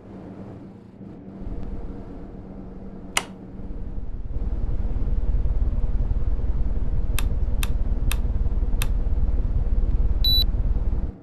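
Household air conditioner running with a steady hum and low rumble that grows louder about four seconds in. A sharp click comes about three seconds in, four clicks follow later, and a short high beep sounds near the end.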